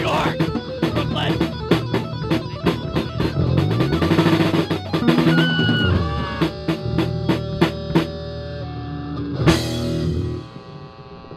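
Rock band playing an instrumental passage: busy drum-kit hits over sustained bass and guitar. A loud cymbal crash comes about nine and a half seconds in, then the band drops out, leaving a quiet tail near the end.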